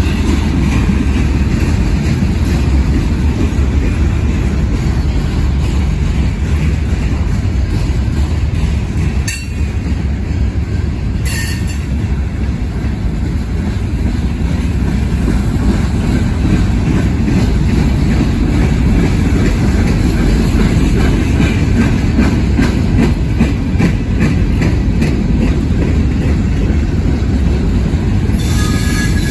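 Freight train cars (boxcars, hoppers and tank cars) rolling slowly past at close range: a steady low rumble of steel wheels on the rails. A few brief sharp knocks come through, about nine and eleven seconds in and again near the end.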